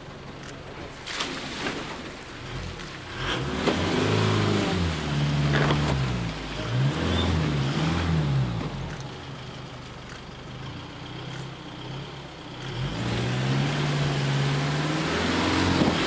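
Isuzu D-Max pickup's diesel engine revving up and down under load as it tows a camper trailer down a steep drop into a muddy creek and drives through the water. Two long spells of revving, the revs rising and falling, with a dip in between, over the noise of the wheels in the mud and water.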